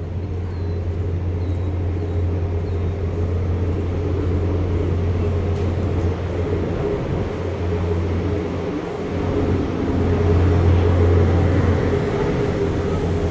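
Steady low drone of a cruise ship's machinery, with an even hiss over it; it swells a little about two-thirds of the way through.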